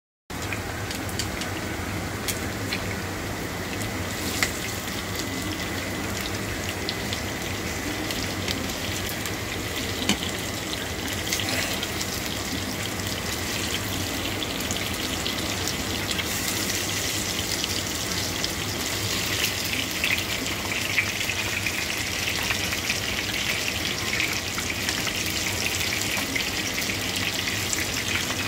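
Pieces of pork sizzling steadily in hot oil in a frying pan, with a few sharp clicks as a spatula turns the meat.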